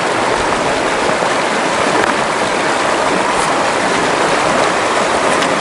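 Shallow mountain creek rushing steadily over rocks and stones, a constant even rush of water.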